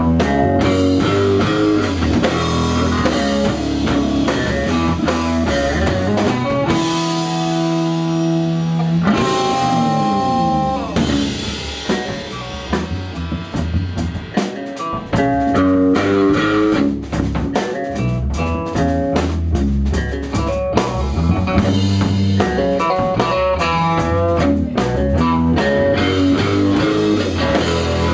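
Live indie noise-rock band playing: electric guitars over a drum kit. About a third of the way in, the band thins to held guitar notes that slide in pitch, then the full band with drums comes back in.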